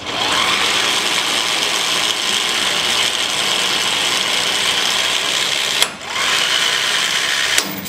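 Corded electric impact wrench running in reverse, hammering on the top nut of a pickup's front shock absorber to break it loose. It makes a steady high whine under the hammering rattle in one long run of about six seconds, stops briefly, then runs again for a short second burst.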